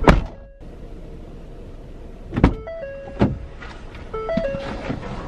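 Sharp knocks and thumps at a car's open driver door as someone climbs out: one right at the start, then two more about two and a half and three seconds in. A short electronic chime of two or three stepped tones sounds twice in between.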